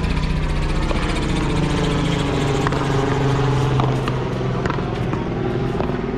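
A motor vehicle engine runs nearby as a steady low drone that swells a little in pitch and loudness around the middle. Over it come several sharp cracks of the rubber ball being struck by paddles and hitting the concrete wall.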